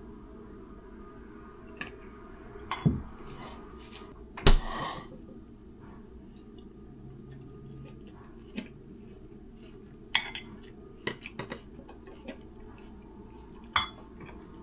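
Clatter of making a salad: a plastic dressing bottle and a plastic jar are handled, set down and opened over a ceramic bowl on the counter, giving scattered knocks and clicks. The two loudest knocks come about 3 and 4.5 seconds in, and a quicker run of clicks comes about 10 to 11 seconds in, over a steady low hum.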